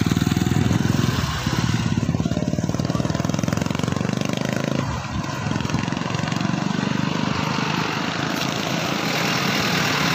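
A small motorcycle engine running close by, a fast even pulsing that holds steady with a brief dip about five seconds in.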